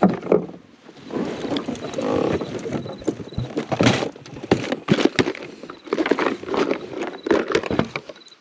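Close, irregular knocks, clatter and rustling, like gear or a fish being handled close to the microphone.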